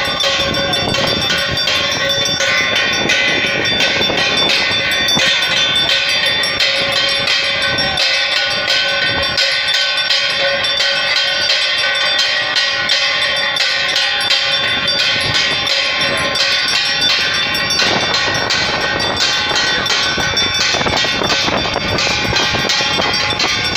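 Hand bells and cymbals clanging without a break in the ringing accompaniment of a Hindu arati, a dense metallic din of rapid strikes over steady ringing tones. The low thuds thin out for several seconds in the middle.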